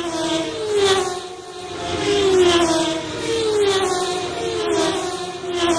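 Racing car engines going past one after another, each engine note falling in pitch as the car passes, with tyre hiss rising and falling at each pass.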